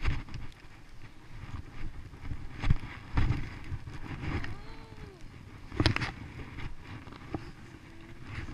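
Skis sliding and carving over snow with wind rushing on the microphone, broken by several sharp thumps, the loudest about three and six seconds in.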